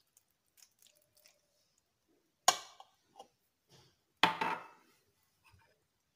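Kitchenware being handled: two sharp knocks about two seconds apart, each with a short ring, after a few faint clicks.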